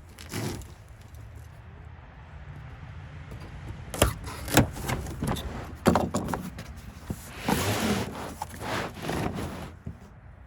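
Stiff molded floor liners being handled and fitted inside a pickup's cab: several sharp knocks and clacks around the middle, then scraping and rustling as a liner is shifted into place.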